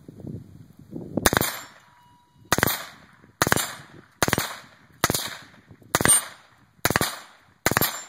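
Suppressed AR-15 with an 11.5-inch barrel firing semi-automatic shots at a steady pace, eight in all, each a sharp crack with a short tail, starting about a second in.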